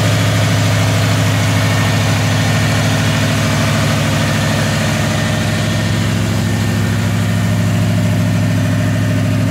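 Ford Racing crate V8 in a 1985 Ford F-150 idling steadily.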